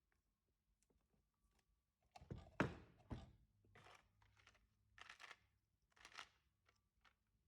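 Keyboard box and packaging being handled and opened: a thud about two and a half seconds in, then a few short rustles and scrapes of cardboard and wrapping about a second apart.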